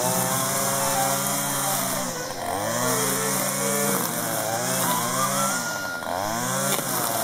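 Petrol string trimmer engine running at high revs, its pitch sagging and recovering about three times as it is throttled and loaded in the grass.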